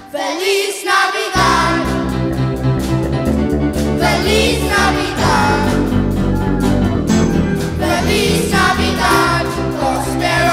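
Children's choir singing a song with a live band of drum kit, keyboard and guitar. The bass and drums drop out for about the first second, then the full band comes back in.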